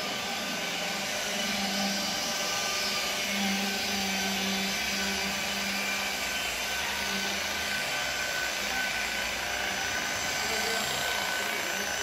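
Electric rotary car polisher running steadily, buffing newly painted car bodywork, its motor hum swelling and easing as the pad is worked.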